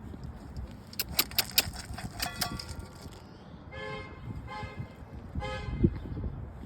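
A vehicle horn tooting in short, steady-pitched blasts, three of them about a second apart in the second half, after a few sharp clicks near the start.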